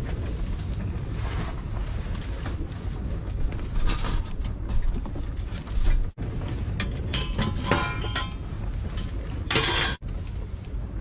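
Strong wind buffeting the microphone, a steady low rumble, with clinks and clatter of dishes or cookware around two-thirds of the way in and again near the end.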